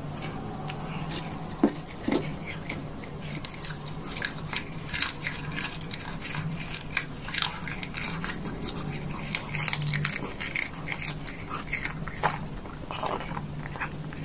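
A cat biting and chewing whole cooked shrimp, shells and all: a quick, irregular run of crisp crunches and wet smacks. Two dull thumps come about a second and a half to two seconds in, over a low steady hum.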